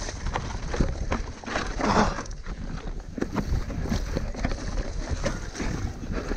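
Mountain bike descending a rocky dirt trail at speed: tyres crunching over dirt and stones, with a steady run of knocks and rattles as the bike hits rocks, the loudest cluster about two seconds in.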